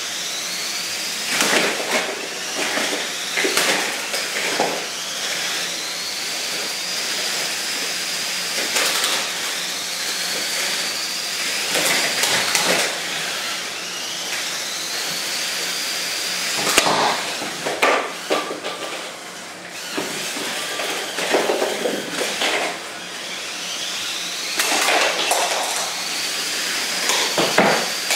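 Small electric motors of Lego combat robots whining, the pitch rising and levelling off as a spinner weapon spins up, again and again, with clusters of sharp plastic knocks and clatter from hits and the robots driving on the cardboard arena.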